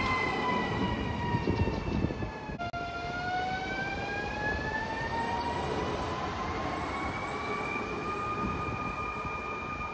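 Skoda 16Ev electric multiple unit pulling away, its traction equipment whining in several pitches at once: the whine sinks a little, drops abruptly about two and a half seconds in, then climbs steadily as the train gathers speed and levels off near the end. A low rumble and a few knocks from the wheels on the rails come in the first two seconds.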